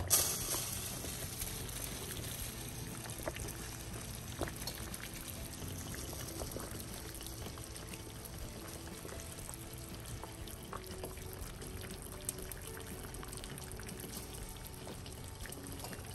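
Water at a rolling boil in a glass saucepan of green bananas, a steady bubbling with small scattered pops, after a short knock at the very start.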